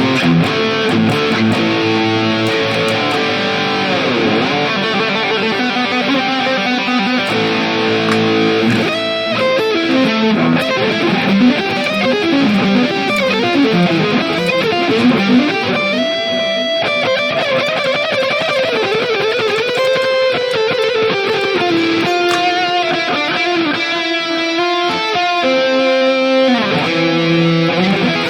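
Electric guitar played through a NUX MG-30 modelling unit on its high-gain 5150 amp model with a pan delay, the repeats panning from left to right; sustained chords and lead lines with bent notes.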